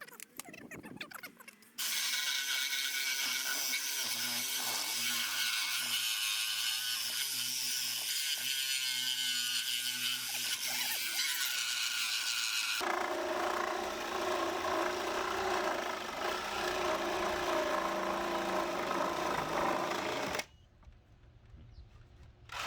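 Reciprocating saw cutting during demolition, running without a break for about eighteen seconds. It starts about two seconds in and changes abruptly partway through to a lower, fuller sound. It stops suddenly near the end.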